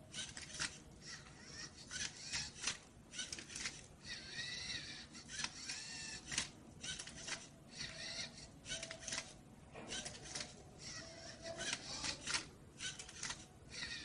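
LEGO robot's small electric motors whirring in short bursts, with clicking as it turns the faces of a Rubik's cube; some whirs sweep up and down in pitch.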